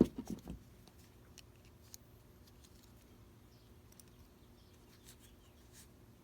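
A quick cluster of sharp clicks and knocks as steel linesman pliers and a blue insulated crimp terminal are handled, then only faint small clicks.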